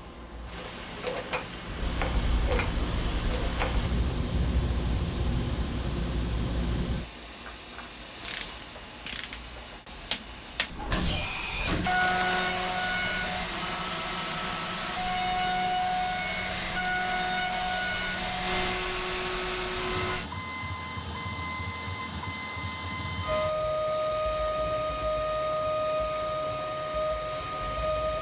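DN Solutions DVF 5000 five-axis CNC mill machining, heard as a series of cut-together clips. It starts with a low rumble of cutting, then some clicks, then steady high spindle whines that change pitch at each cut, over a constant hiss.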